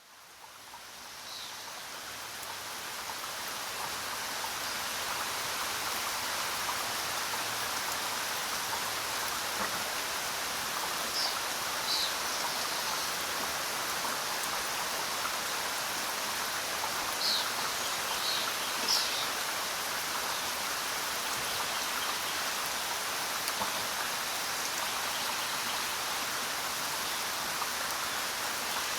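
Steady rain falling, fading in over the first few seconds, with a few short, high bird chirps scattered through it.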